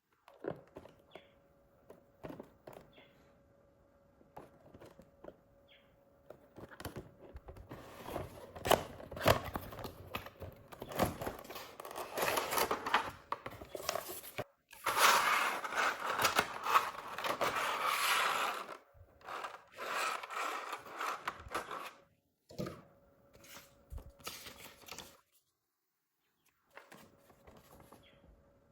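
Packaging being opened and handled by hand: scattered clicks and rustles, then a long stretch of tearing, scraping and crinkling about a third of the way in, easing back to light clicks near the end.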